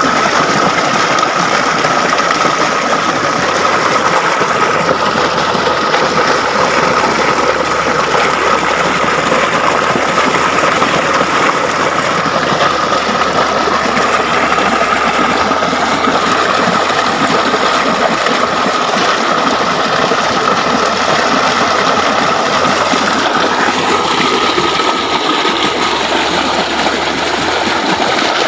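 Small waterfall pouring down a rock face into a pool: a steady, loud rush of falling and splashing water.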